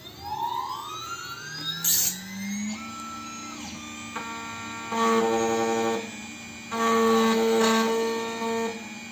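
Automatic key-cutting machine's motors: a whine that rises in pitch over the first few seconds as the machine spins up, then a steady hum broken by two louder whining stretches, about five and about seven seconds in.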